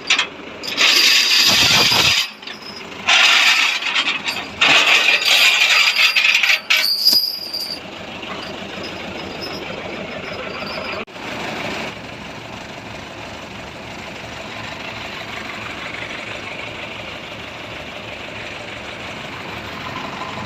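Three loud, rattling, hissing bursts over the first several seconds, then an engine running steadily, with one short louder burst about eleven seconds in.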